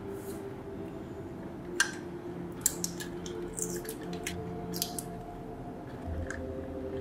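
A scattered run of small sharp clicks and taps, like small parts and tools being handled, over a faint steady hum.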